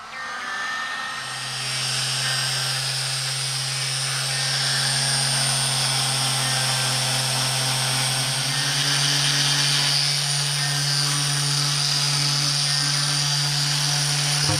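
Hand-held power tool running steadily, a motor hum under a hissing high-pitched whirr that comes up about a second in.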